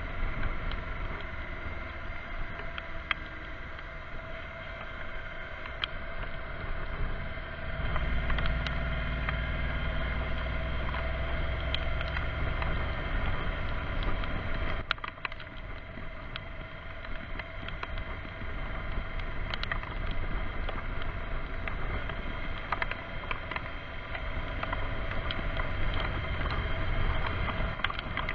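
Kawasaki Vulcan S's 649 cc parallel-twin engine running at a steady cruise under wind rush on the moving motorcycle, with scattered sharp ticks. A deeper rumble swells for a few seconds about eight seconds in.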